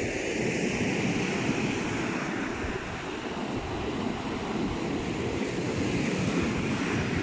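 Rough sea surf breaking and washing ashore in a steady rush, with wind buffeting the microphone.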